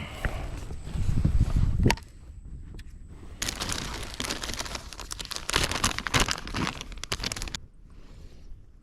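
Rustling, crinkling handling noise: a low buffeting rumble about a second in, then about four seconds of dense small crackles and clicks.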